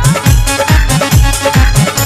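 Instrumental backing of a Haryanvi Balaji bhajan in an electronic DJ style, with a steady, fast bass-drum beat under synthesised melody.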